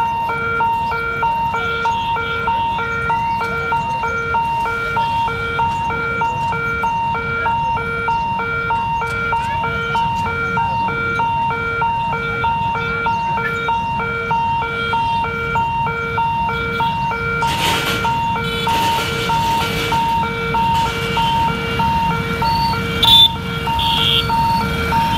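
Level-crossing warning hooter beeping evenly, about two electronic beeps a second, as the crossing's boom barrier is worked. In the last few seconds motorcycle engines and a horn join in as traffic moves off.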